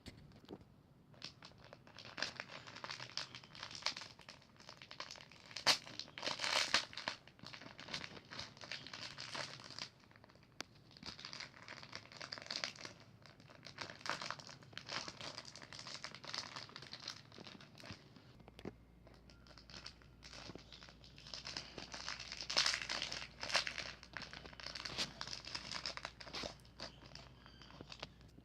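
Crinkly packaging being handled and unwrapped by hand: irregular crinkling and crumpling with some tearing, in louder flurries a few seconds in and again after about twenty seconds.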